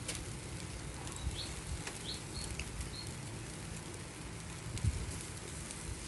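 Butterflied dorado sizzling on a wire grill over charcoal, a steady hiss with scattered light crackles. A bird chirps a few short high notes between one and three seconds in.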